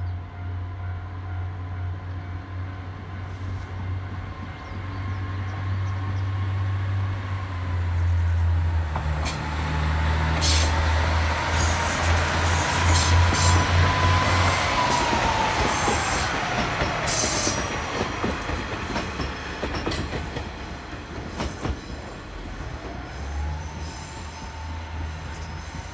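KiHa 48 diesel railcar passing close by: its diesel engine drones and its wheels click over the rail joints, growing louder to a peak about halfway through, with a tone that drops in pitch as it goes by, then fading away.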